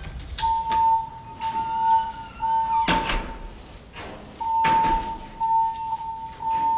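Building fire alarm system sounding its evacuation tone during an alarm test: a steady mid-pitched beep in groups of three, with a pause before each group repeats, the temporal-three fire evacuation pattern. Several sharp knocks or clicks sound among the beeps.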